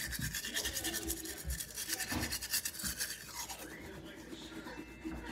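Manual toothbrush scrubbing teeth in quick back-and-forth strokes, a rapid scratchy brushing that turns quieter and more muffled about four seconds in.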